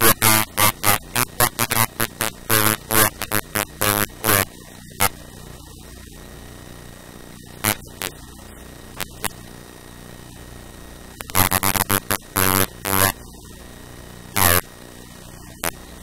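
Pencil scratching on paper in quick strokes while writing out numbers. A dense run of strokes at the start, a few scattered strokes in the middle, then another burst of writing about eleven seconds in, over a steady low hum.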